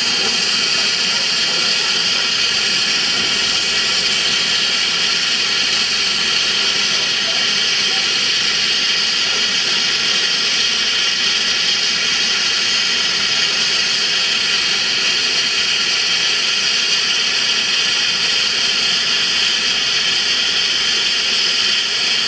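Steady loud hiss of steam escaping from a Chinese C2 0-8-0 narrow-gauge steam locomotive that is in steam.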